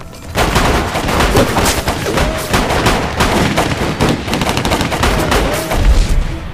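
Heavy gunfire: rifles and a light machine gun firing rapidly in dense, overlapping shots, starting abruptly about a quarter second in.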